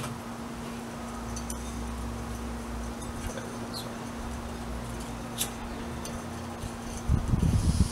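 Small propane camp stove being set up by hand: a few light clicks and clinks of metal parts, over a faint steady hum. A short burst of low rumble comes near the end.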